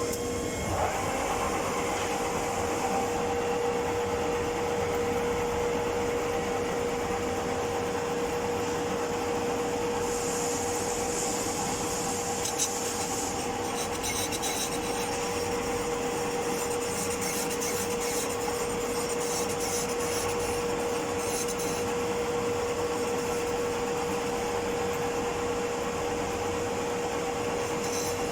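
Metal lathe running with a steady hum while turning a metal casting, a scraping cutting noise over it that grows brighter for a few seconds about ten seconds in.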